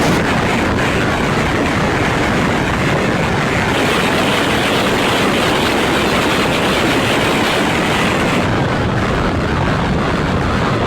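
Harsh noise from a eurorack modular synthesizer patched for FM: a loud, unbroken wall of distorted noise running from deep rumble up into hiss. About eight seconds in, the highest hiss drops back while the rest carries on.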